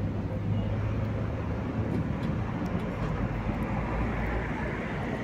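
A cat eating wet food from a metal plate, with a few faint chewing clicks, over a steady low rumble and hum.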